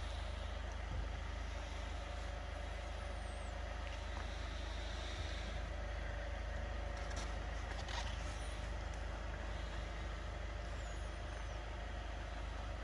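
Faint steady low rumble and hiss of room ambience, with a few light clicks near the middle.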